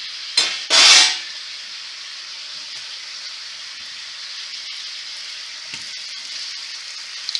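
Corn-flour-coated sweet potato slices frying in hot oil, a steady sizzle. About a second in, the sizzle surges loudly and briefly as another floured slice goes into the oil. The sizzling is the sign that the oil is hot enough.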